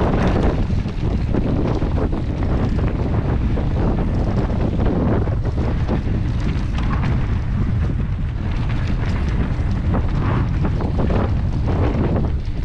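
Wind rushing over the microphone with a constant low rumble, mixed with rattling and knocks from a mountain bike riding down a rough bike-park trail.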